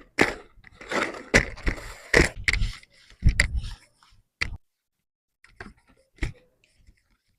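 A paper explosion gift box being handled and opened: irregular scrapes, taps and rustles, busiest in the first four and a half seconds, then a few soft clicks.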